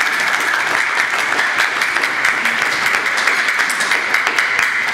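Spectators applauding a won point: many hands clapping at once, merging into a steady, loud wash of claps.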